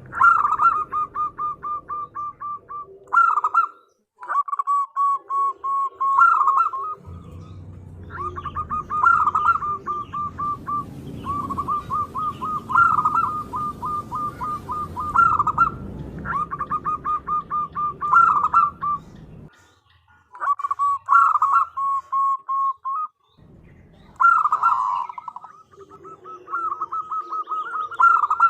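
Female zebra dove (perkutut) calling to attract a male: phrase after phrase of rapid staccato cooing notes, repeated every couple of seconds with short pauses between. A low background rumble runs under the calls through the middle stretch.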